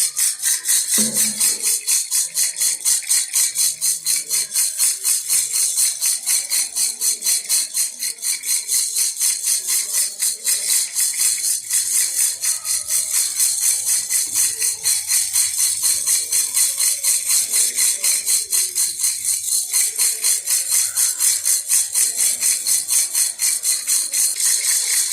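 Baby rattle (jhunjhuna) shaken steadily in a fast, even rhythm of about four to five crisp, high rattling strokes a second.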